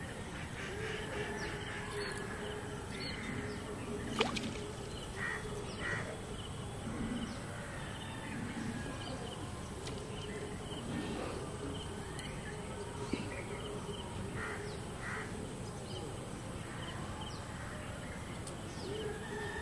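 Crows cawing now and then, in short pairs of calls, over a steady outdoor background with a faint low hum. A single sharp click sounds about four seconds in.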